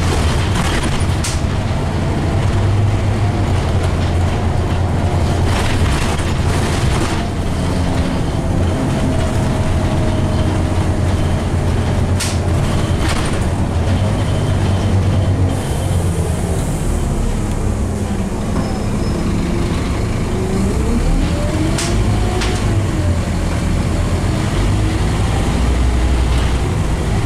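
Scania OmniCity N230UD double-decker bus under way, heard from inside the saloon: the five-cylinder diesel engine and automatic drivetrain run with a steady low rumble and whine. About twenty seconds in, the whine's pitch dips and climbs again as the bus slows and pulls away. There are occasional short clicks and rattles throughout.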